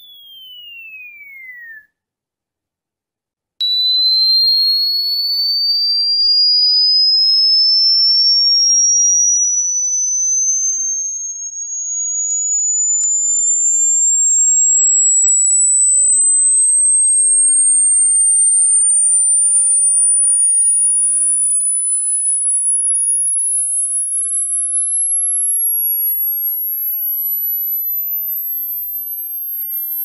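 Electronic anti-cricket repellent tone, a pure sine whistle. A falling tone ends about two seconds in; after a short silence a new tone starts suddenly and climbs slowly and steadily in pitch, ending very high and shrill. A fainter second tone sweeps down from very high near the end.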